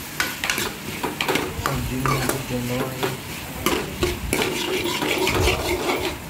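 Metal spoon scraping and knocking against a metal kadhai as diced potatoes, onions and tomatoes are stirred while frying in oil, with a sizzle underneath. Many short, uneven scrapes follow one another throughout.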